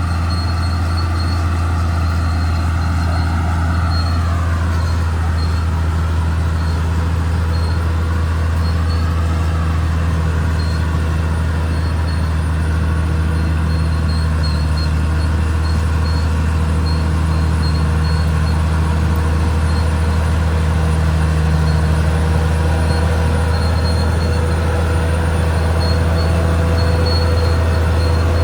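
Caterpillar D6R XL bulldozer's diesel engine running steadily under work. A higher whining tone from the machine falls in pitch about four seconds in.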